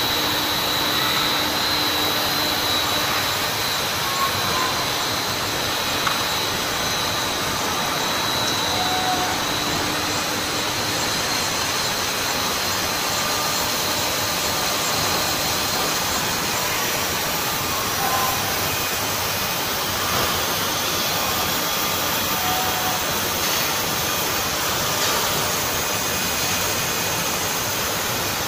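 Steady factory machinery noise from a running rubber hose extrusion line: a constant rushing hum with a thin high whine over the first several seconds.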